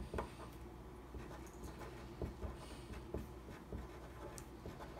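Pen writing on a paper worksheet: faint, irregular scratching and light taps of the pen tip as a line of handwriting is written.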